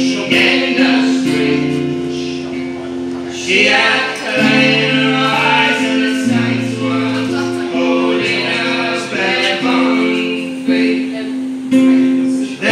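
Folk song played live on button accordion and acoustic guitar: sustained accordion chords with stepping bass notes under a strummed guitar, and a voice singing the melody over them.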